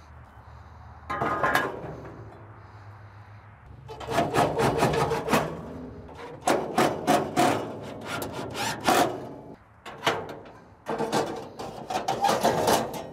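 Stainless-steel pellet-grill parts being refitted by hand: repeated metal clanks, knocks and scraping as pieces are set down, slid and fitted into place. It is busiest from about four seconds in.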